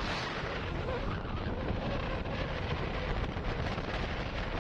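Wind rushing over the microphone of a moving motorcycle, with the motorcycle's engine running underneath.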